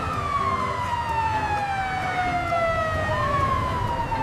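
Ambulance siren wailing. Its pitch slides slowly down, sweeps back up about three seconds in, then falls again.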